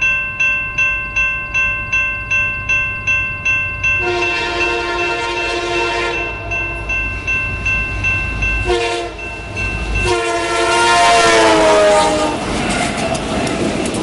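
A railroad crossing bell dings about three times a second. A locomotive horn then takes over with the grade-crossing signal, long, long, short, long, and the last blast drops in pitch as the locomotive passes. The clatter of the passing train's wheels follows.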